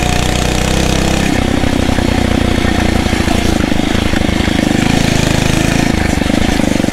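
Phatmoto Rover 79cc motorized bicycle engine running steadily while riding, its note changing about a second and a half in.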